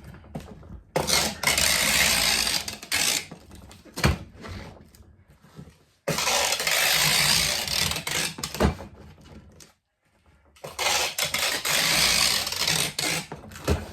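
Packing tape pulled off the roll across a cardboard box in three long tearing pulls of two to three seconds each, each followed by a sharp click.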